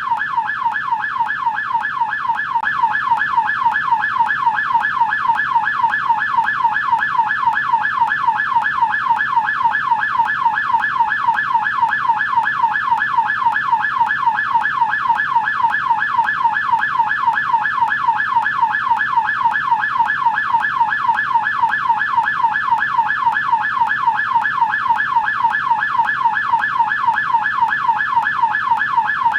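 American police siren in yelp mode, its tone sweeping rapidly and evenly up and down several times a second without a break.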